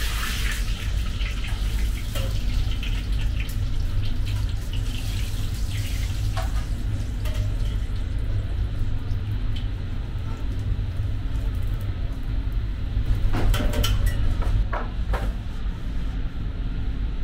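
Kitchen sound of fried-pizza dough in a pot of hot oil sizzling with a steady hiss over a constant low hum. Scattered clinks of utensils come through it, with a sharper clatter about thirteen to fifteen seconds in.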